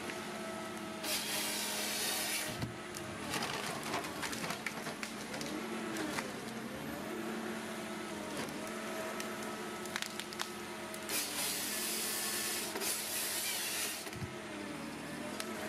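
A heavy machine running, its engine pitch rising and falling, with many clicks and knocks and two stretches of loud hissing, one about a second in and one near the end.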